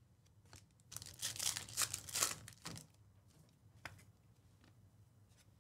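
Trading cards handled in the hands: a run of dry rustling scrapes as cards slide against one another for about two seconds, then a single soft click near the end.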